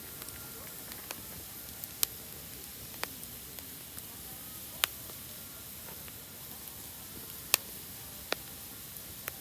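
Wood campfire burning with a steady hiss, broken by half a dozen sharp crackling pops spaced irregularly a second or two apart.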